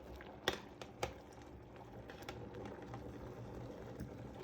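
A few faint, sharp clicks and taps over a low, steady background hum.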